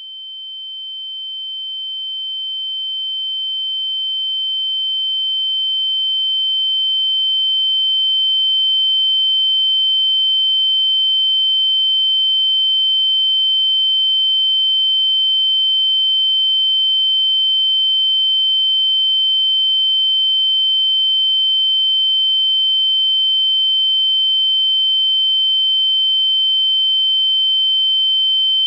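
Ear-ringing (tinnitus) sound effect: a steady high-pitched pure tone that swells in slowly over several seconds, then holds level.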